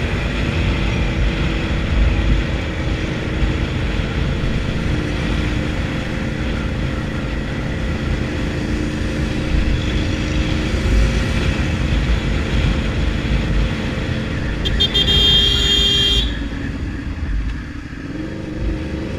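Motorcycle engine running steadily while riding in traffic, with wind rumble on the microphone. A horn sounds once for about a second and a half near the end.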